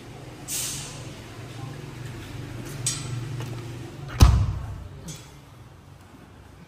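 Rustling and handling noise over a low hum, a click near the three-second mark, then one sharp thud about four seconds in, the loudest sound.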